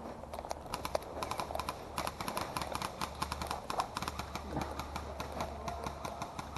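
Light, irregular clicks and taps, several a second, typical of airsoft fire: distant rifles shooting and BBs striking cover.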